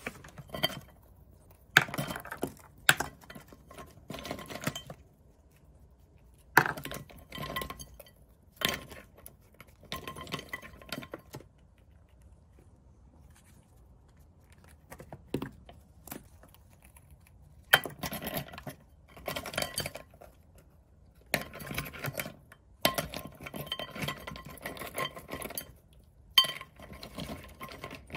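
Nuts in the shell clattering and clinking against a glass bowl as a gray squirrel digs through them, in bursts with sharp knocks every few seconds and quiet gaps between.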